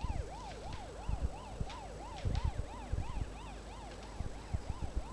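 Electronic siren wailing rapidly up and down, about two to three sweeps a second, with irregular low thuds underneath.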